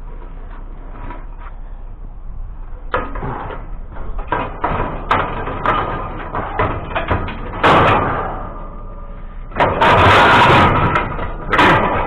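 Scrap being handled and stacked onto a load: a run of knocks and clatters starting about three seconds in, with two louder rattling crashes in the second half.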